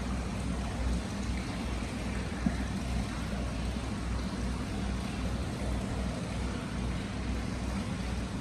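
Free-flowing hot spring water pouring steadily into an indoor bath: a continuous rush of water with a low rumble underneath.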